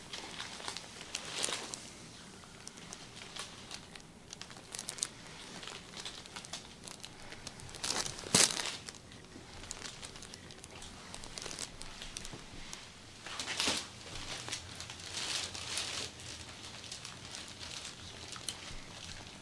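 Massage handling sounds: hands rubbing and working over the body, with irregular rustling and crinkling and a sharper, louder rustle about eight seconds in.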